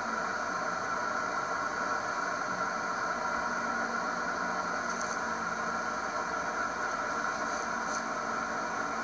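Steady hiss and hum of a car's cabin while the car rolls slowly, with no distinct knocks or voices standing out.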